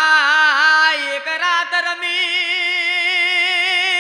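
A single voice singing a devotional song in long held notes with a wavering vibrato, stepping up to a slightly higher note about a second in.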